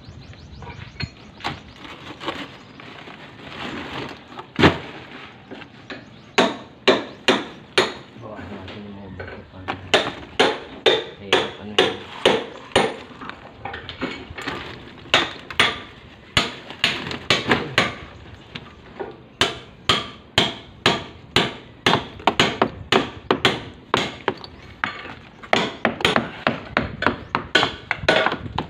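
Hard tools striking concrete and stone rubble: a single loud knock, then from about six seconds in a steady run of sharp knocks at roughly two a second.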